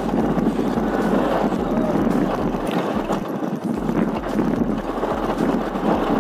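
Motorbike engine running at low speed over a rough dirt lane, with wind buffeting the microphone and a few light knocks from the bumps.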